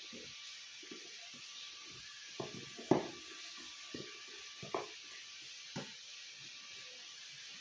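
Handling of the phone and its box during an unboxing: a few light knocks and taps, the sharpest about three seconds in, over a steady hiss.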